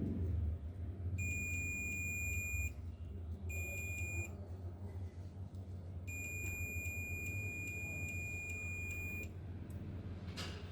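An electronic beeper sounds a steady high-pitched tone three times: about a second and a half, then a shorter one, then a longer one of about three seconds, over a constant low hum.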